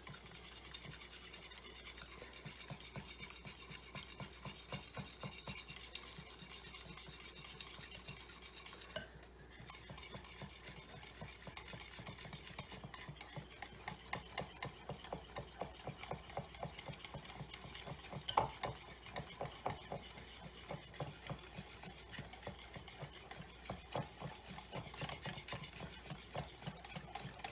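Wire balloon whisk beating yogurt into eggs in a mixing bowl: a fast, steady run of soft whisking strokes with a brief pause about nine seconds in.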